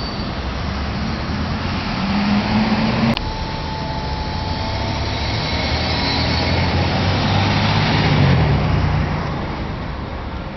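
Street traffic: motor vehicles running and driving past with a steady engine hum. The sound changes abruptly about three seconds in, then swells again later as another vehicle passes.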